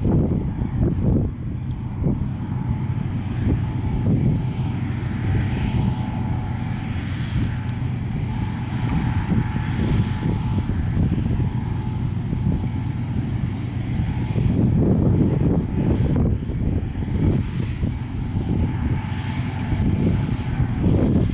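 Steady mechanical engine hum with irregular low rumbling gusts, like wind buffeting the microphone.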